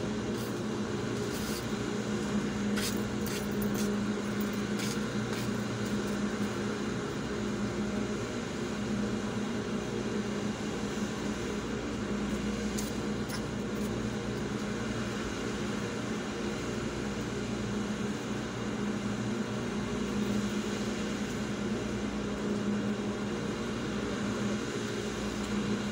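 Steady machine hum with a low droning tone, unchanging throughout, with a few faint clicks in the first few seconds.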